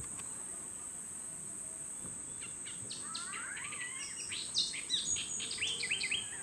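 A steady high insect buzz, with a flurry of quick bird chirps and whistled sweeps starting about halfway through.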